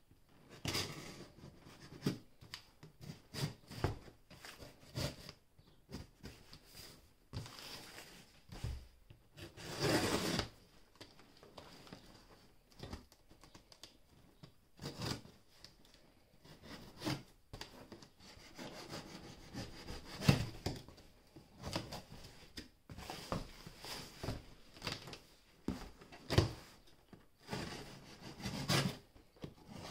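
Irregular bursts of rubbing and scraping, most of them short and one lasting about a second, over a faint steady high whine.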